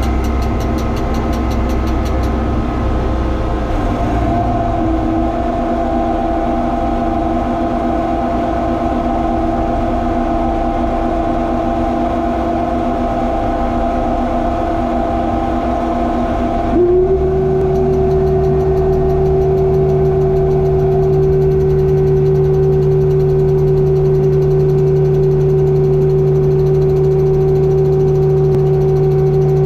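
Steady hum of a boom truck's hydraulic-powered air conditioner, heard inside the truck's cab. About 17 seconds in, the hum steps up in pitch and gets a little louder.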